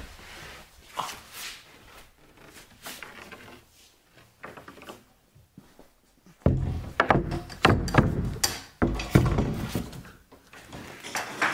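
A sheet of OSB board being handled and laid onto the metal cradle of an Edma drywall and panel lift: light scraping and handling at first, then, from about six seconds in, a run of loud wooden knocks and thumps as the board is set down on the frame.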